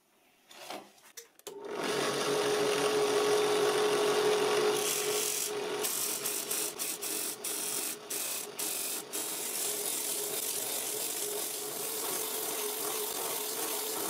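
A cheap low-power drill press starts about a second and a half in and spins a homemade plywood drum sander. Coarse-grit sandpaper on a hinged board is pressed against the drum, giving a steady motor hum under a rasping sanding noise, which falters several times midway. This is the drum being ground true into a perfect cylinder.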